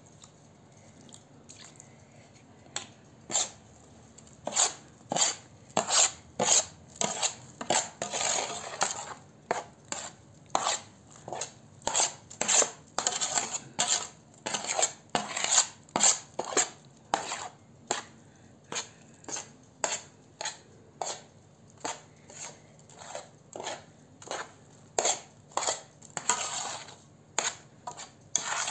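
A metal utensil stirring soaked bulgur in a metal tray, knocking against the tray in repeated sharp clicks, about one or two a second, with gritty scraping of the grain between them. The clicks begin a few seconds in.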